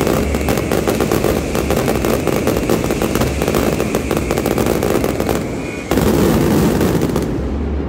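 Fireworks going off in a dense, rapid barrage of bangs and crackle, which jumps louder about six seconds in.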